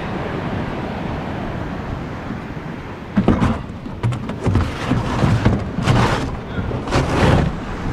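Steady wind buffeting on the microphone with surf behind it. From about three seconds in come several louder bursts of rustling and knocking as plastic jerry cans and coolers are shifted in a pickup truck bed.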